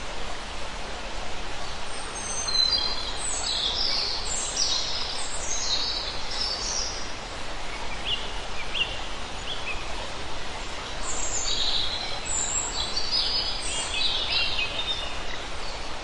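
Forest stream babbling steadily over rocks, with a songbird singing two spells of rapid high notes, about two seconds in and again about eleven seconds in, and a few lower notes in between.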